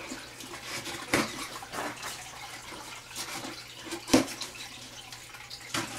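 Steady trickling of water from a goldfish winter-pond tank's pump outflow, its flow reduced, which the owner puts down to a pump filter needing cleaning. Several sharp clicks and scrapes from hands working at a taped cardboard box, the loudest about four seconds in.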